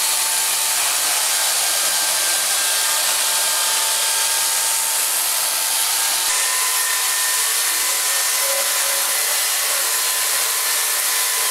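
Corded electric chainsaw running steadily while ripping lengthwise down a log: a constant motor whine over the noise of the chain cutting wood, its pitch shifting slightly about six seconds in.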